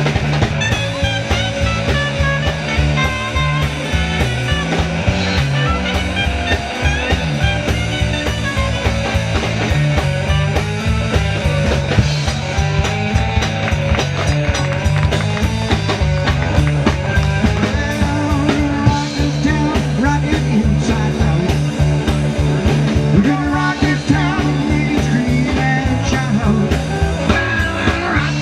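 Live rock band playing an instrumental passage: guitar over a stepping bass line and a steady drum beat.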